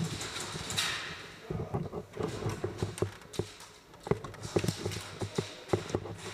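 Footsteps and gear clatter of an airsoft player moving on a hard indoor floor: irregular short knocks and thuds, after a brief rustling hiss in the first second.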